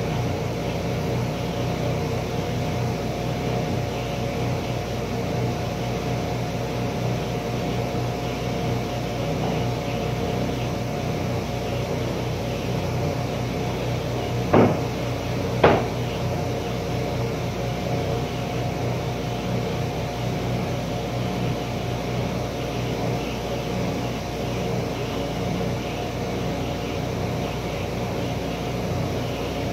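Sliding-table panel saw's motor running steadily with an even hum that does not change in pitch. Two sharp knocks about a second apart come roughly halfway through.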